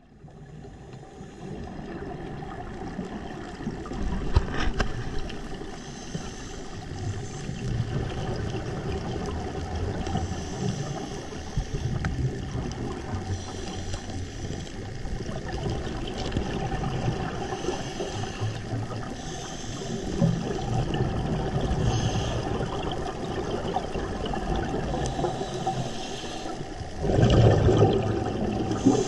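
Underwater ambience picked up by a submerged camera: a steady low rumble of water noise, with a short burst of hissing bubbles every few seconds, as from a scuba diver breathing out through a regulator. A louder surge of rumbling comes near the end.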